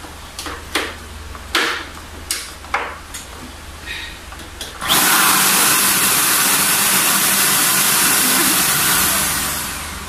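Clicks and knocks of plastic parts being handled, then about five seconds in a Gaabor 2-in-1 handheld vacuum cleaner is switched on and its motor runs loudly and steadily, fading near the end.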